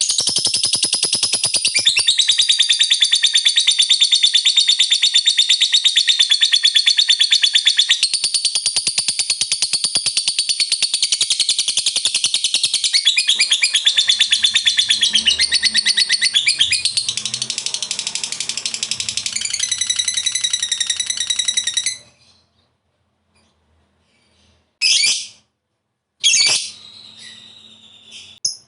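Lovebird ngekek: one long, very rapid, high-pitched chattering trill lasting about twenty-two seconds. It then stops, and two short sharp calls follow a few seconds later.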